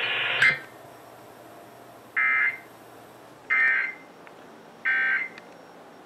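Emergency Alert System End of Message: three short, identical bursts of buzzy digital data tones from a radio speaker, about 1.3 s apart, signalling that the alert is over. Before them a steady hiss cuts off about half a second in.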